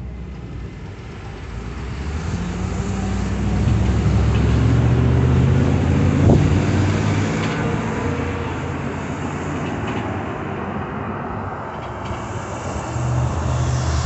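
Cars and a pickup truck driving across a railroad crossing, their engines and tyres building to a loud pass about five seconds in and again near the end, with a single thump in the middle.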